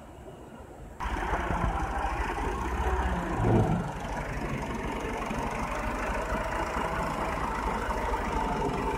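Tractor engine running steadily, starting about a second in, with a brief louder swell near the middle.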